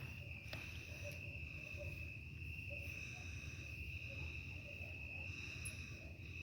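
Night insects such as crickets trilling in a steady, continuous high chorus, with a low rumble underneath.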